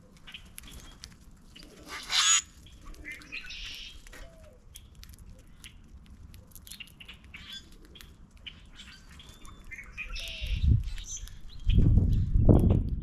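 Common grackles and other feeder birds chirping and calling, with a loud harsh squawk about two seconds in. In the last couple of seconds, low heavy wingbeats as birds take off from the feeder.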